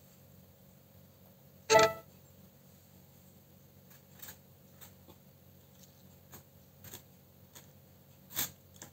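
Scattered light taps and clicks of small paper cut-outs being moved by hand on a tabletop. A loud, short pitched sound like a brief beep or honk comes about two seconds in, and a sharper click near the end.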